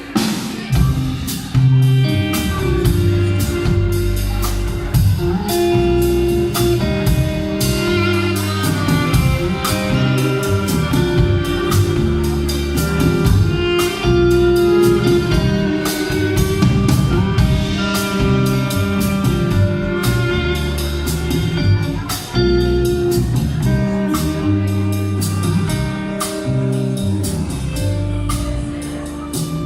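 Live band playing an instrumental passage: guitar lines over a drum kit and steady bass notes.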